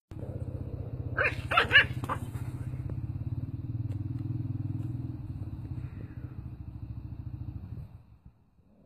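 A puppy yapping about four times in quick succession over a low, steady, pulsing rumble that fades out near the end.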